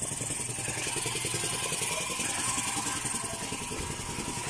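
A small engine idling steadily with a rapid, even pulse.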